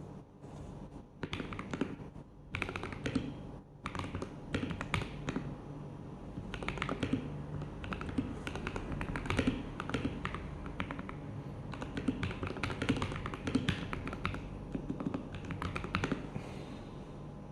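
DareU EK861 mechanical keyboard with MMD Panda tactile switches, Akko ASA-profile keycaps and added case and PCB foam being typed on. The key strokes come in short runs with brief pauses at first, then as steady fast typing from about four seconds in.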